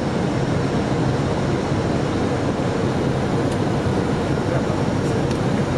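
Steady noise inside an aircraft cockpit on approach: engines and rushing air make a dense, even rumble that holds at one level throughout.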